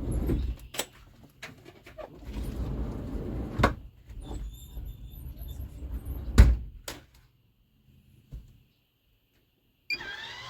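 Handling noise: several sharp clicks and knocks, the loudest about six seconds in, with rustling and scraping between them, then a few seconds of near silence. Just before the end a different steady sound with faint sliding tones starts.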